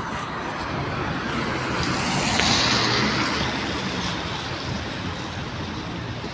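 A vehicle passing on a wet road: the hiss of tyres on water swells to a peak about two and a half seconds in and then fades, over a steady low engine hum.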